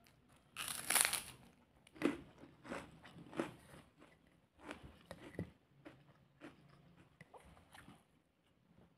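A person biting into a crunchy puffed cracker and chewing it with the mouth close to the microphone. One loud crunch comes about half a second in, then a run of shorter crunches that thin out toward the end.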